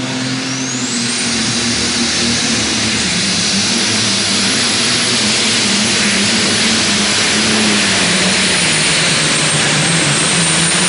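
Light modified pulling tractor 'Mad Max' running at full power down the track with the sled. A high whine climbs over the first second and then holds steady over the engine's drone.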